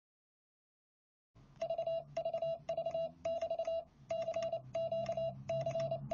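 Silence, then from about a second and a half in, a telephone-like electronic tone beeping in short warbling bursts, about two a second.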